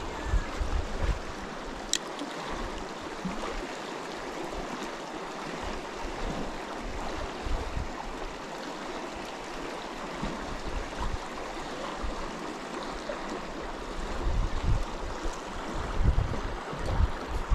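Steady rush of flowing river water, with irregular low bumps near the start and in the last few seconds.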